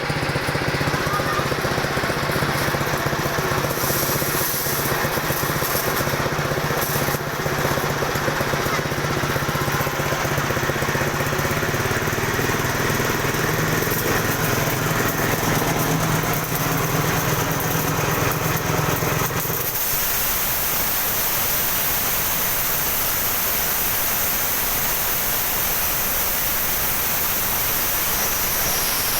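A small engine-driven machine running steadily. About twenty seconds in, the low hum drops away and a steady hiss carries on.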